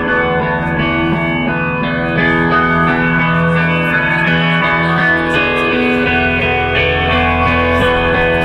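Double-neck electric guitar played loud through an amplifier with effects: long, overlapping notes ring on in layers over a low held note, with the harmony shifting a couple of times.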